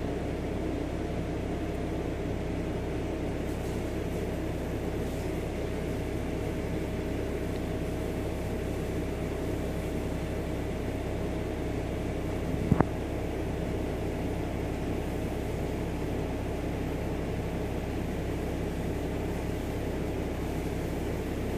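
Self-levelling rear air suspension compressor of a BMW E61 525xd running steadily with a hum, pumping air to raise the rear of the car after being replaced. There is one short sharp click about 13 seconds in.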